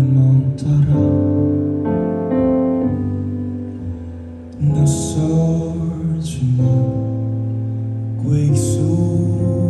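A male singer singing a slow song live into a microphone, holding long notes over instrumental accompaniment.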